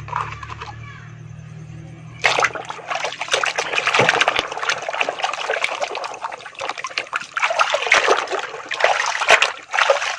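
Water splashing and running as a muddy toy vehicle is washed and rinsed, starting about two seconds in and going on unevenly with quick splashes.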